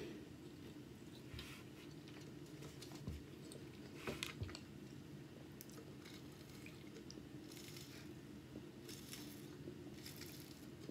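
Faint close-up mouth sounds: soft chewing and swallowing, then short sips through a drinking straw from a can of sparkling drink in the second half.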